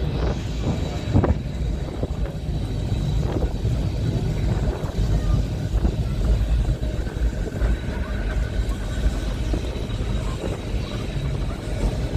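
Open-top boat tram running along the track: a steady low rumble with wind buffeting the microphone. A faint whine comes in for a couple of seconds past the middle.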